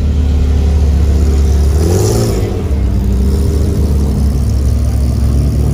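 Ferrari 348's mid-mounted V8 running at low revs as the car passes close by and pulls away slowly. A brief rev rises and falls about two seconds in.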